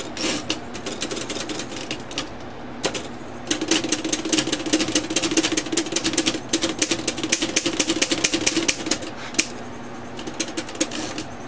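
Underwood manual typewriter's platen turned by hand at its knob, the mechanism clicking: scattered clicks at first, then a quick steady run of clicks for several seconds, a short pause and a few more near the end.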